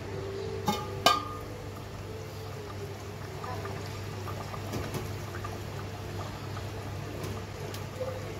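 A stainless steel lid clinks twice against a cooking pot about a second in. After that, thick chicken curry bubbles faintly as it simmers, over a steady low hum.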